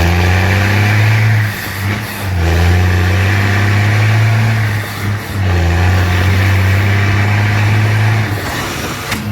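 Loaded diesel truck with a straight-pipe exhaust pulling away, its deep engine note rising and then holding steady. The note breaks off briefly about a second and a half in and again around five seconds in.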